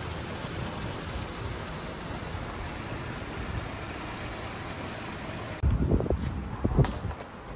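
A steady outdoor hiss, then about two-thirds of the way through, gusts of wind buffeting the microphone with low rumbles and a few sharp clicks.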